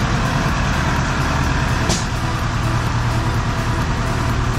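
Tractor diesel engine running steadily with a low hum, and a single short click about two seconds in.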